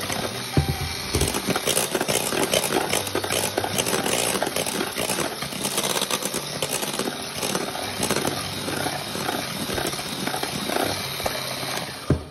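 Electric hand mixer running steadily, its wire beaters whisking eggs and granulated sugar in a stainless steel bowl. It cuts off suddenly near the end.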